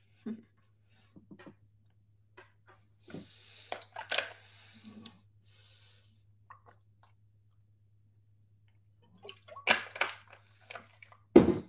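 A person taking a drink from a bottle: scattered small clicks and handling noises with mouth and swallowing sounds, and a louder short noise near the end. A faint steady low hum runs underneath.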